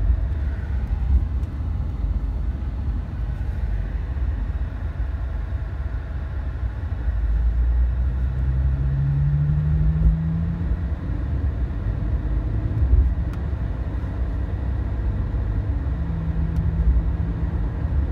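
Engine and road noise inside a moving car's cabin: a steady low rumble. The engine note rises about halfway through and again near the end.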